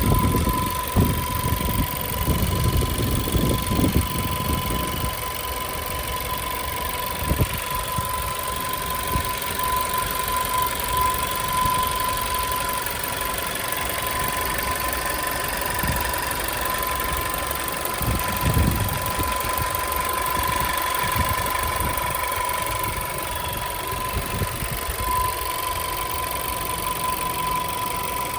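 VW Tiguan 1.4 TSI (CZDA) petrol engine idling warm, with a loud, steady, high whistle held at one pitch over the engine sound. A few low bumps come in the first few seconds and once more past the middle.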